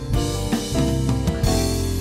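Background music: sustained keyboard chords with a drum kit beat.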